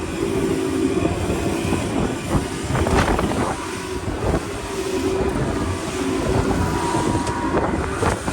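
Small motorboat's engine running under way in rough sea, with wind and water rushing past and a few sharp knocks as the hull slams into waves.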